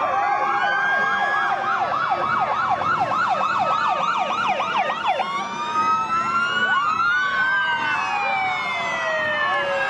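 Police escort sirens: a fast yelp of about four rising-and-falling sweeps a second, changing about five seconds in to slower wailing glides, with more than one siren overlapping in the second half.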